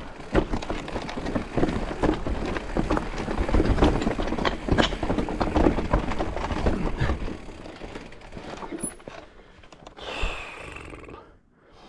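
Mountain bike riding over a rooty dirt trail: tyres rumbling over roots and dirt with frequent knocks and rattles from the bike. It eases off over the last few seconds.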